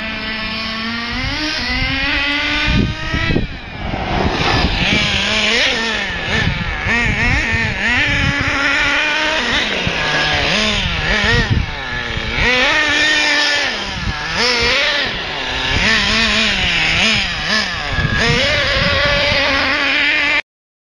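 Small combustion engine of an XTM XLB RC car revving under throttle. It climbs steadily in pitch for about three seconds and drops suddenly, then rises and falls over and over as the throttle is worked. It cuts off abruptly just before the end.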